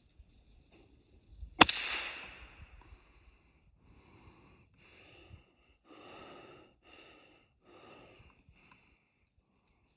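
A single sharp shot from a scoped small-game rifle about a second and a half in, the loudest sound, with a short decaying tail. It is followed by about six short sounds, under a second apart.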